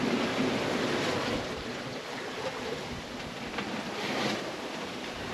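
Steady rushing of wind and sea around a sailing yacht underway, with wind noise on the microphone and a brief swell in loudness about four seconds in.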